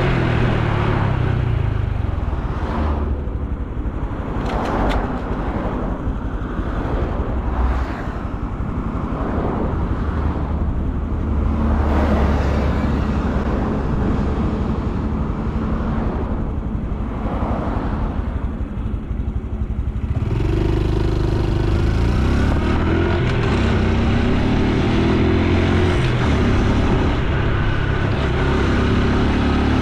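Honda Super Cub C125's 125 cc single-cylinder four-stroke engine and exhaust while riding, heard together with wind and road noise. The engine note falls in pitch near the start, stays low under the rush of wind for a while, then comes to the fore about two-thirds of the way in, its pitch rising and falling as it accelerates.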